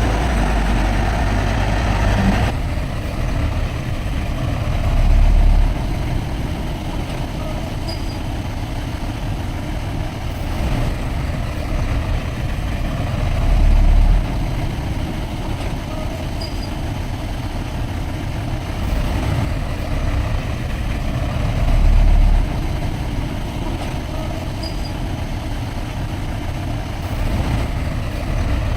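Heavy diesel earthmoving machinery running continuously, with deep surges in engine load roughly every eight seconds.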